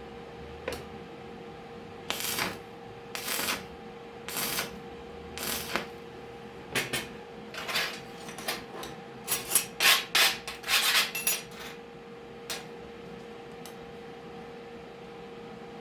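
A series of short scraping strokes on metal, about a dozen, coming quicker and louder partway through, then stopping; a steady hum runs underneath.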